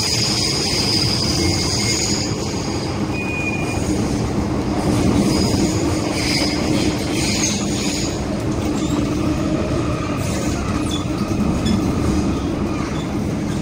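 MTR M-Train heard from inside a passenger car while running: a steady rumble of wheels on track, with a high-pitched wheel squeal that comes and goes, strongest in the first two seconds and again about five to eight seconds in.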